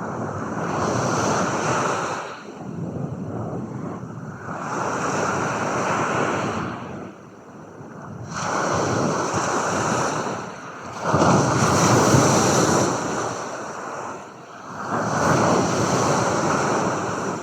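Ocean waves washing in and drawing back, a rushing swell rising and falling about every three seconds.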